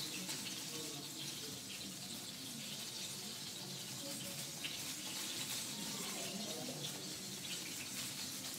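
A steady, faint hiss with no distinct knocks or clicks.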